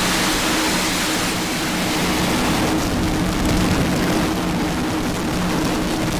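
Falcon 9 rocket's nine Merlin first-stage engines firing just after liftoff: a loud, steady noise, its hiss thinning slightly after a couple of seconds as the vehicle climbs away.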